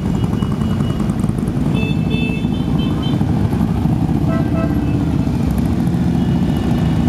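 A pack of large cruiser and touring motorcycles running at low revs as the line rolls off slowly, a steady, dense engine rumble. A few short high-pitched tones sound over it.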